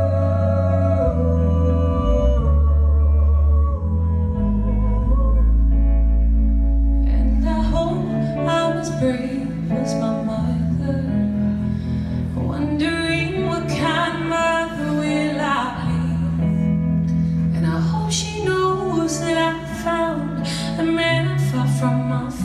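Live band music with a woman singing long held notes with vibrato into a microphone over deep sustained bass and guitar. About seven seconds in the accompaniment turns busier, with plucked guitar notes under the singing.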